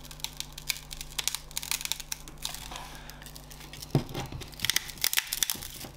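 Crackling and tearing of strong screen adhesive as a metal pry tool peels the cracked front glass of a Lenovo Tab E7 tablet away from its LCD, with many small clicks and a sharper crackle about four seconds in.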